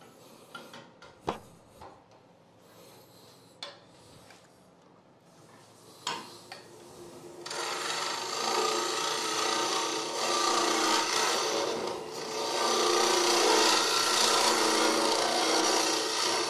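Wood lathe with a turning tool hollowing out the inside of a spinning soft white maple box blank: a continuous scraping cutting noise over the lathe's steady hum starts about halfway through, easing briefly once before carrying on. A few light knocks come before the cut.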